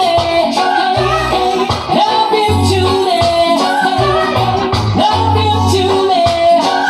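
Reggae song playing: a deep, stop-start bass line and a shaker under a gliding melodic lead.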